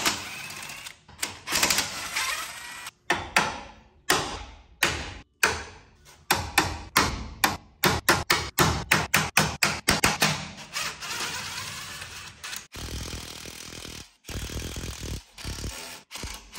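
A fast, irregular series of clicks, clunks and metallic knocks from hand tools and parts being removed while a damaged car is taken apart, broken by sudden cuts.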